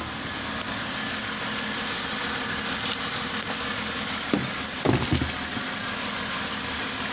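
A 2006 BMW 530i's inline-six engine idling steadily and running smooth, its cylinder-five misfire cured by a new ignition coil. A couple of brief sharp sounds come about halfway through.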